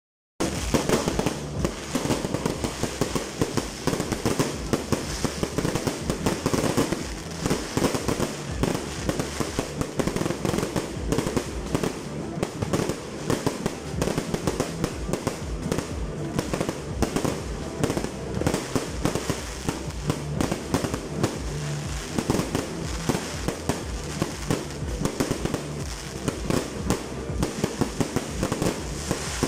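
A fireworks display going off: a dense, continuous barrage of bangs in rapid succession, starting abruptly about half a second in.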